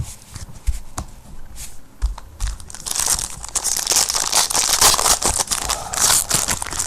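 Plastic trading-card pack wrappers being torn open and crinkled. A few light clicks come first, then loud, dense crinkling from about three seconds in.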